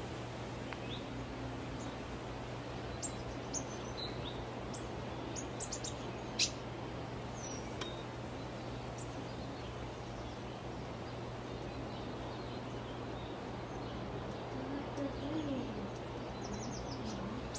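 Outdoor ambience: a steady low hum with scattered brief, high bird chirps, most of them a few seconds in, and a few lower wavering calls near the end.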